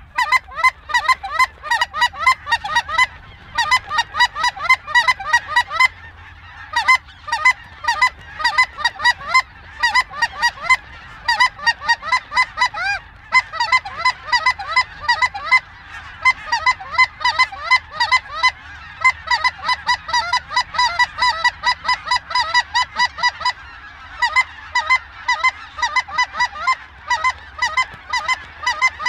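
Snow geese calling: a dense chorus of short, high honks overlapping several times a second.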